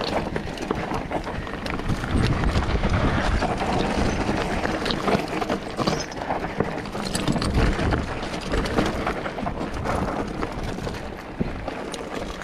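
Mountain bike riding down a rough, rocky trail: tyres crunching over stones and the bike rattling, heard as many irregular knocks over a constant low rumble.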